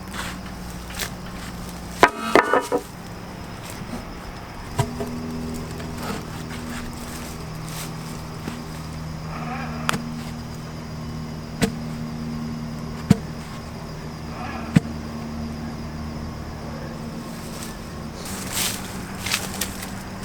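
Hand digging in a fence-post hole: a digging tool strikes and scrapes the soil in scattered sharp knocks, a quick cluster about two seconds in, single strikes spread through the middle, and another cluster near the end, as the hole is dug deeper. A steady low hum runs underneath.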